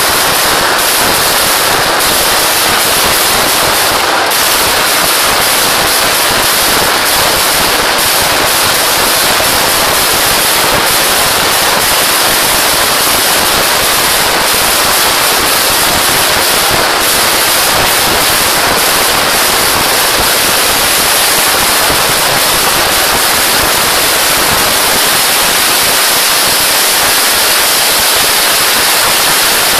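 Kerala temple-festival firework barrage: a dense, unbroken stream of firecracker bangs so rapid that they merge into one continuous wall of noise.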